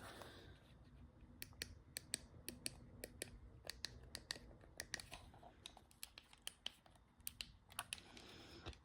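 Faint, irregular small clicks and light scratching as hands handle a plastic handheld weather radio and its packaging.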